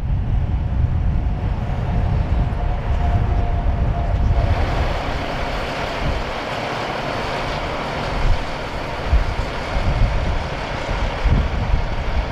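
Heavy vehicle engine running, with wind buffeting the microphone; about four seconds in a steady hiss sets in over it.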